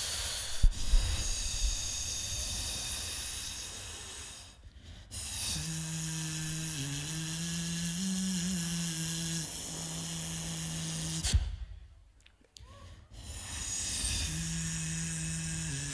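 Solo beatboxing into a stage microphone. It opens with breathy hissing sounds and low thumps, with a sharp click about half a second in. From about five seconds in comes a long hummed low bass note that wavers in pitch, broken by short gaps of near silence.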